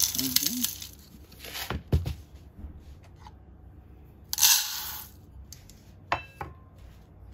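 Dry rice and lentil halim mix poured from a jar into a steel measuring cup, rattling. A knock about two seconds in, then the cupful tipped into a steel pot with a loud rush of grains hitting the metal just before five seconds, followed by two metallic clinks with a short ring.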